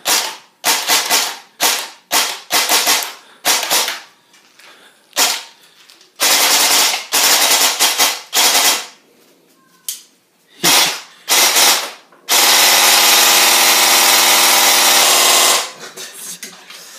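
Specna Arms M4 airsoft electric gun firing with its programmable trigger unit: a string of single shots and short bursts, each a quick mechanical rattle of the gearbox cycling. About twelve seconds in, it fires one sustained full-auto string of about three seconds, then stops.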